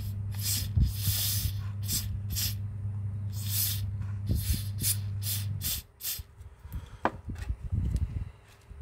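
Aerosol sticker-remover spray can hissing out in a dozen or so short squirts, one longer burst about a second in, sprayed into a phone frame to loosen the battery's adhesive. A steady low hum runs underneath and stops about two thirds of the way through.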